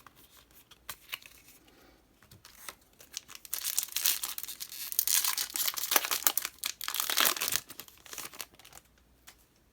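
Foil booster-pack wrapper of Yu-Gi-Oh! trading cards being torn open and crinkled. Light rustles and clicks at first, then a dense stretch of tearing and crinkling lasting about four seconds in the middle.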